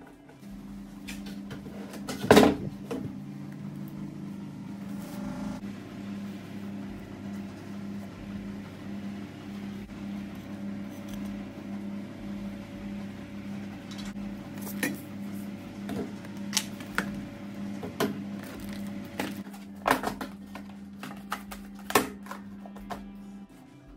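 Knocks and clatters of toiletries and containers being handled and set down in a wooden drawer, the loudest about two seconds in and more of them in the second half. Under them runs a steady low hum with a slight pulse, which cuts off suddenly just before the end.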